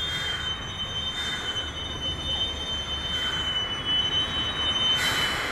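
Narrow-gauge iron ore train of loaded side-dump wagons rolling slowly past behind an electric locomotive, its wheels squealing against the rails in a steady high-pitched tone that wavers slightly over the rumble of the wagons. The squeal stops near the end.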